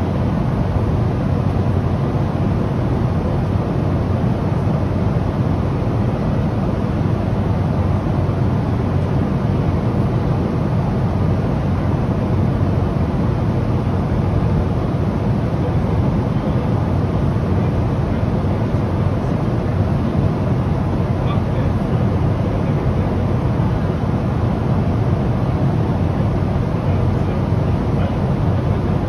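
Steady low rumble and hiss of a Boeing 777-200's cabin in cruise flight: engine and airflow noise, even and unchanging throughout.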